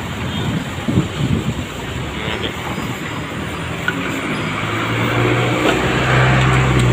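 A motor vehicle's engine running close by, a steady low hum that grows louder through the second half over general street traffic noise.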